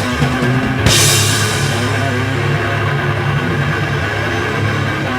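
Live heavy rock band playing an instrumental passage with no vocals: a cymbal crash about a second in, then distorted guitars and bass holding a low, ringing chord.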